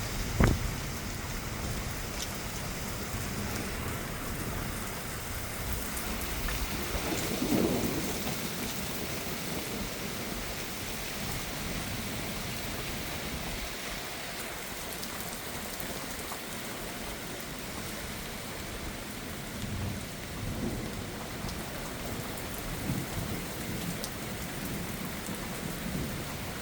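Steady heavy rain pouring onto surfaces in a severe thunderstorm. A sharp knock comes about half a second in, and a low rumble swells and fades around seven to eight seconds in.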